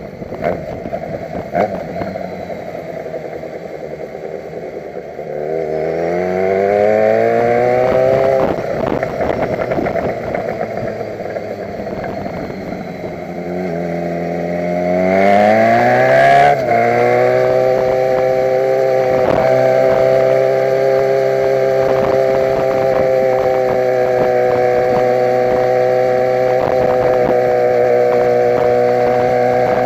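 Motorcycle engine accelerating twice, its pitch rising about five seconds in and again about thirteen seconds in, each climb ending in a gear change. It then runs steadily at cruising speed.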